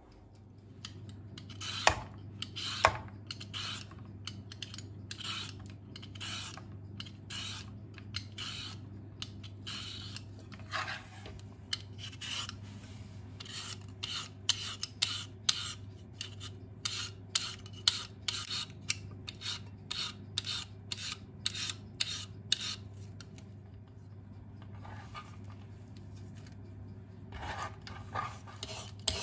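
Food being grated on a hand grater: rhythmic rasping strokes, about two a second, stopping for a few seconds near the end and then starting again.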